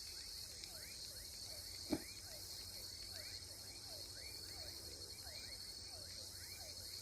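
Faint evening chorus of crickets and other insects, a steady high hiss, with a short falling chirp repeating about twice a second. One sharp click about two seconds in.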